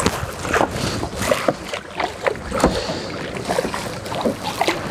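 A hooked bass thrashing and splashing at the water's surface as it is reeled to the boat: a quick, irregular run of splashes.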